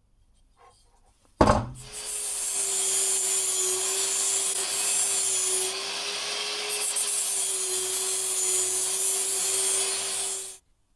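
Angle grinder with a cut-off disc, mounted in a chop stand, starts with a sharp click about a second and a half in and then runs with a steady motor hum while the disc cuts metal with a loud hiss. The sound cuts off suddenly near the end.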